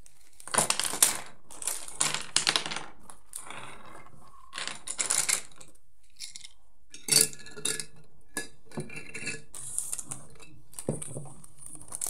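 Coloured pencils clattering against each other as a handful is taken from their packet and sorted into desk pen holders, with rustling of the packet. It comes as irregular bursts of clicks and rustles.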